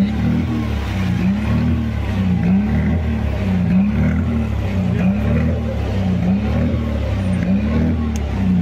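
An engine running steadily, its pitch rising and falling evenly about once a second over a low rumble.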